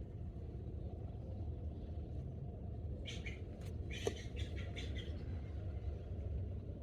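Small songbirds chirping in two quick bursts of short high notes about three and four seconds in, over a steady low outdoor rumble.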